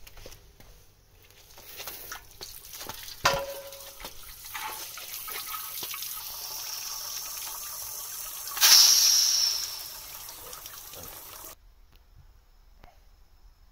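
Water from a garden hose running into a steel gas-cylinder air tank through its end valve and spilling onto paving slabs as the tank fills. There is a sharp knock about three seconds in and a louder gush of water about nine seconds in, and the running water cuts off abruptly about two seconds before the end.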